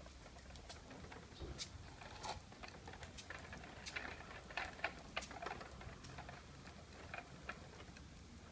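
Faint, irregular clicks and taps of a hard plastic Bruder toy truck and tractors being handled, busiest about halfway through.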